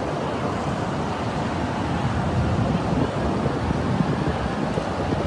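Storm wind buffeting the microphone over heavy rain, a steady rushing noise with gusts at the low end.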